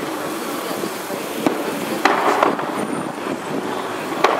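Fireworks going off: a few sharp bangs, one about a second and a half in, two around two seconds in and one near the end, over steady background noise of passing traffic.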